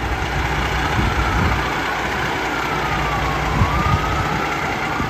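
Detroit Diesel 60 Series engine of a 2007 American LaFrance Eagle fire engine idling with a steady rumble. A siren tone slowly slides down in pitch and then back up over it, and a couple of low knocks come about three and a half seconds in.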